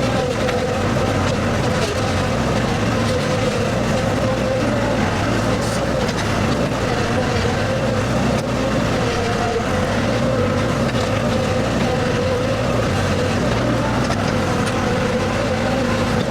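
Skid steer engine running steadily under operation, its pitch wavering slightly with engine speed.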